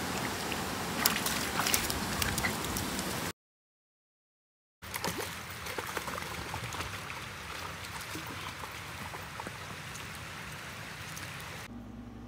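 Shallow creek water running steadily, with scattered splashes from a dog wading through it. The sound drops out completely for about a second and a half a few seconds in, and near the end gives way to a faint room hum.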